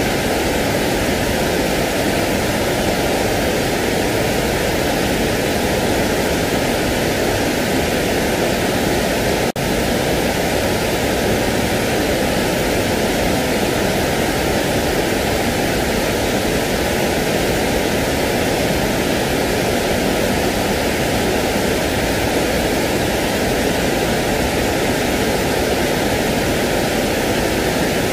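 Steady sleep-aid noise track: an even, unchanging hiss like rushing water, with one very brief dip about nine and a half seconds in.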